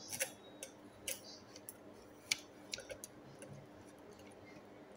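Scattered light clicks and taps of a pencil and hands on a paper worksheet, about a dozen, the sharpest a little past two seconds in.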